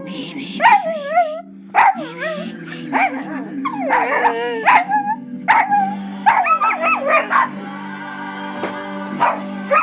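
A dog yipping and whining in short, wavering bursts with a few sharp barks, repeated every second or so, over background music.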